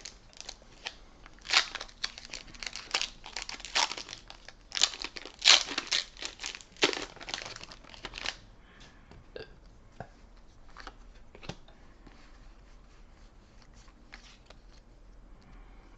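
Foil Pokémon booster pack wrapper being torn open and crinkled: a run of loud crackling tears through the first half, then only faint scattered ticks of handling.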